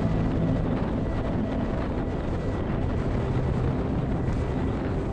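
Strong mountain wind buffeting the action-camera microphone, a dense, steady low rumble.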